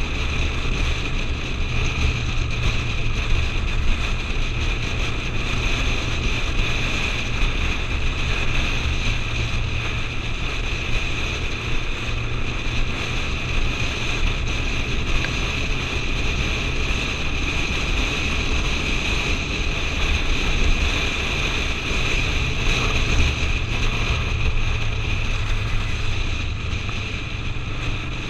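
Motorcycle cruising at steady speed, its engine a constant drone under the steady rush of wind on a helmet-mounted camera.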